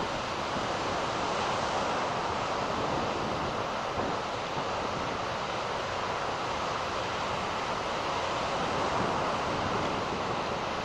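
Ocean surf breaking on the beach, a steady rush of waves with wind over it.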